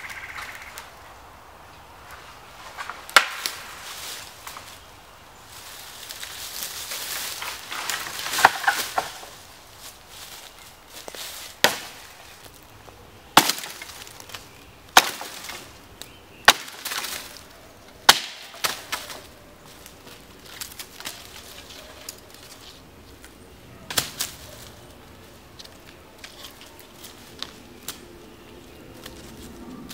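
Hatchet chopping dead poplar wood, limbing a felled pole: about eight sharp single chops at irregular intervals, with a longer stretch of cracking and snapping wood a few seconds in.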